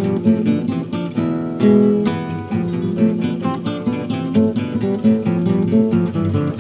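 Acoustic guitars playing a Spanish-style piece, with a quick run of plucked notes and strummed chords.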